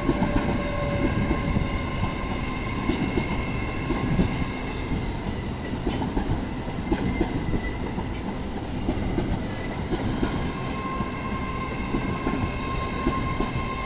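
Train moving along the rails through the station, a continuous rumble with wheels knocking over rail joints and a faint thin squeal from the wheels.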